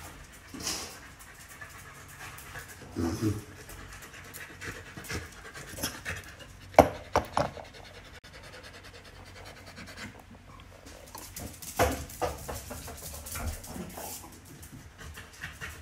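Corgi panting, with scattered sharp clicks and taps on a tile floor, the loudest about seven and twelve seconds in.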